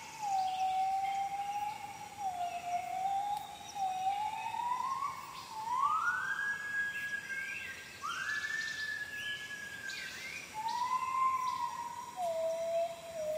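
A series of long, clear whistled calls from a rainforest animal, each one to two seconds. They step up in pitch to a high peak about halfway through, then fall lower again near the end. Fainter bird chirps and a high steady insect hum sit underneath.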